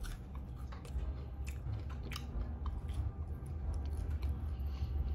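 A person chewing fast food close to the microphone, with crisp crunchy clicks about every half second.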